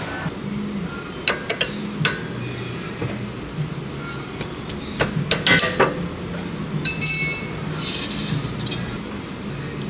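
Open-end wrench clicking and clinking against a tie rod adjusting sleeve as the toe is adjusted during a wheel alignment: a scatter of sharp metal clicks, then two ringing metallic clinks late on.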